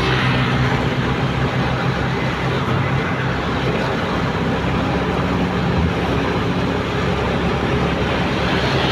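Motorcycle engine running steadily while riding at cruising speed, a low even hum under a steady rush of wind and road noise on the microphone.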